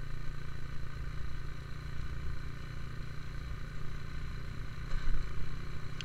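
Steady low drone of a vehicle being driven, with a brief rise in level about five seconds in.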